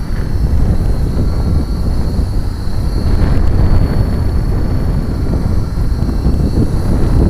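Heavy wind buffeting the microphone, with the faint, steady high whine of a Blade 120SR micro RC helicopter's electric motor and rotors in flight above it.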